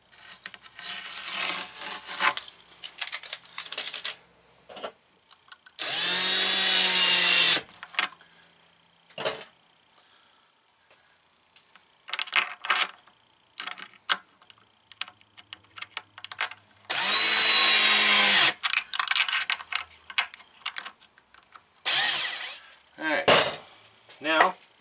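Cordless drill/driver running in two short bursts about ten seconds apart, driving the screws that fix a gas-strut mounting pin to a cabinet door. Small handling clicks and rustles fall between the bursts.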